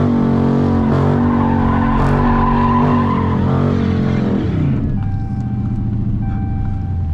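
Car engine held at high revs during a burnout, with tire squeal over it; about four and a half seconds in the revs drop away and the engine settles to a lower idle.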